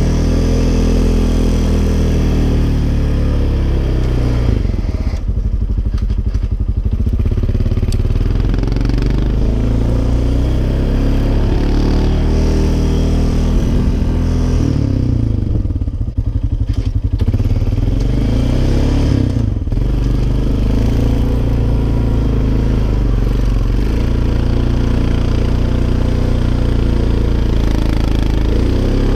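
Honda Foreman 450 ATV's single-cylinder four-stroke engine working hard in second gear while pushing a snow plow blade through deep snow. The revs sag twice, about five and fifteen seconds in, as the engine lugs under the load, and then climb again.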